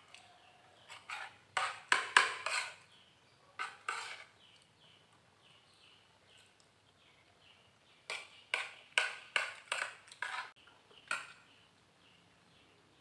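Household clattering and knocking as things are handled and moved, in bursts around two and four seconds in and in a quick run from about eight to eleven seconds in. Faint high chirps sound in the background between the bursts.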